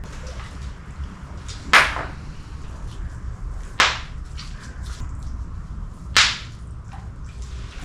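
Shovel digging into rocky mud: three sharp scraping strikes about two seconds apart, over a steady low rumble.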